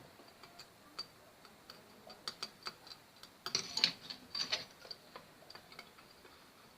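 Faint, irregular small clicks and taps, busier about halfway through: hands and tools handling a part at a TV circuit board.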